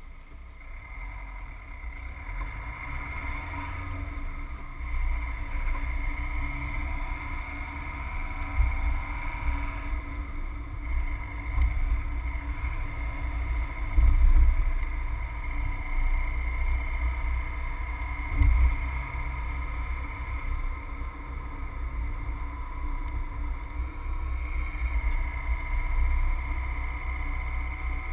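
Subaru Forester's flat-four engine and tyre noise heard from inside the cabin, a low rumble that grows louder as the car pulls away from standstill and drives on. A couple of short thumps come about halfway through, as the car goes over bumps.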